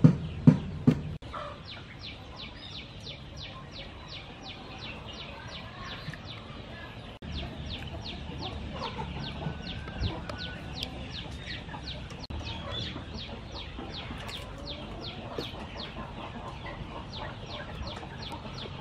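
Outdoor ambience with chickens clucking and a high, quick chirping repeated about three to four times a second. A few sharp knocks in the first second.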